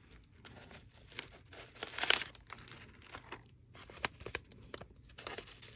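Clear plastic packaging crinkling and rustling as it is handled, in irregular crackles, loudest about two seconds in.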